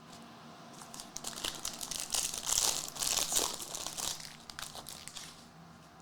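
Foil wrapper of a Mosaic football card pack crinkling as it is handled and torn open: a dense crackle that builds to its loudest in the middle and dies away near the end.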